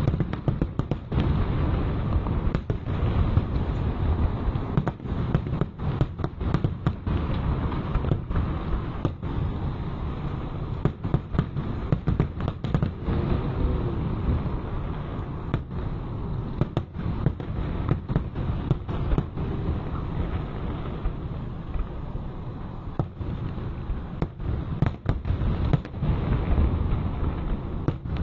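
Fireworks display: aerial shells launching and bursting in quick succession, many sharp bangs over a continuous low rumble.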